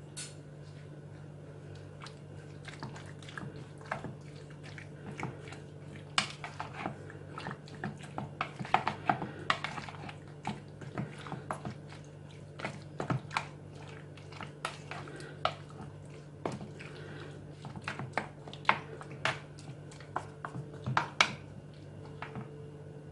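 Wooden spoon stirring raw chicken pieces through a wet marinade in a bowl: irregular squelches and clicks of the spoon against the bowl, over a faint steady hum.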